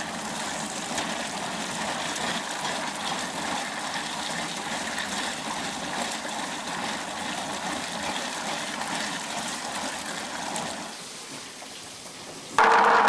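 Water gushing and splashing through a hand-cranked coffee pulper as it strips the fruit pulp off coffee cherries, with beans and water pouring into a trough. It quietens about eleven seconds in, then a much louder steady rushing noise cuts in abruptly near the end.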